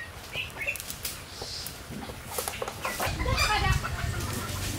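Chickens clucking close by, over scattered sharp crackles from the wood fire under an iron griddle. A low rumble comes in about three seconds in.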